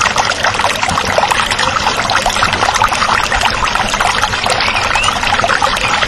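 Water poured in a steady stream into a small shallow pond of water, splashing on the surface as it fills.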